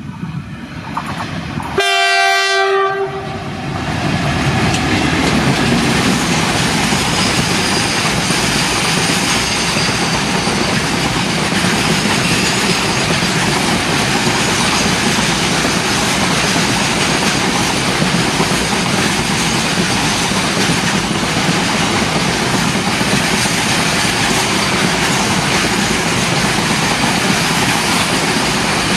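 Indian Railways locomotive horn sounding one blast about two seconds in, followed by a freight train's wagons rolling past with steady, loud wheel-on-rail noise.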